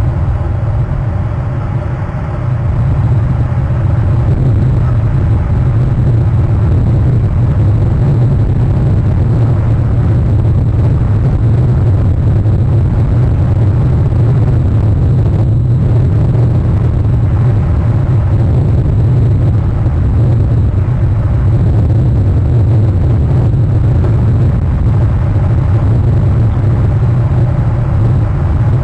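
Steady, loud low rumble with a faint hum, unbroken throughout.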